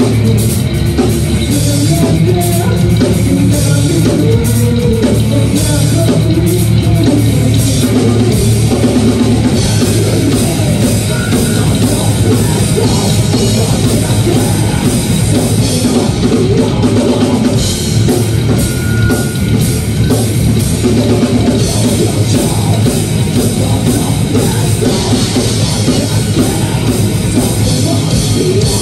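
Rock band playing live: electric guitars, bass guitar and a drum kit, with lead vocals sung into a handheld microphone over them.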